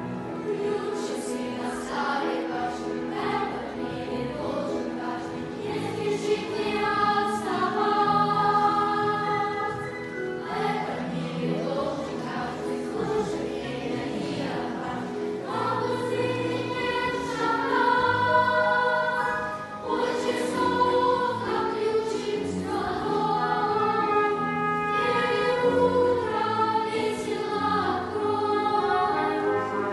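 Choir singing in held, sustained chords.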